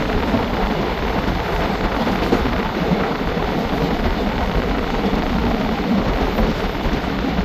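Running noise of a moving train heard from its open doorway: a steady rumble of wheels on rail mixed with a rush of air.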